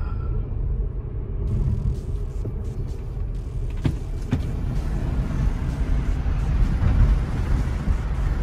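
Tyre and road noise inside the cabin of an electric Tesla Model S P100D cruising at speed: a steady low rumble with an even hiss over it. Two brief knocks come near the middle.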